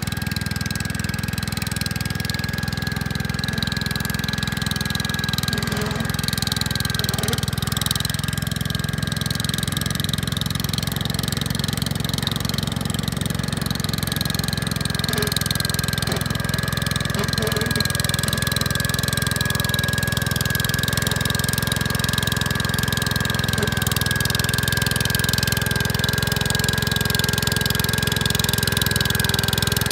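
Gravely walk-behind tractor's engine running steadily at a constant speed, with a steady high whine above it.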